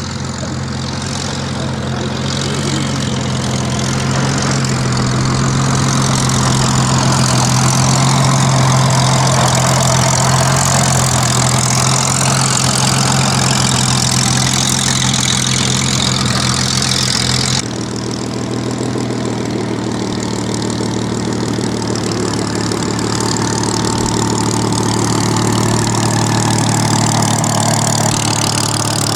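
Piston aero engines of Spitfires and Hurricanes running steadily, swelling to a peak, dropping away suddenly about two-thirds of the way in, then building again.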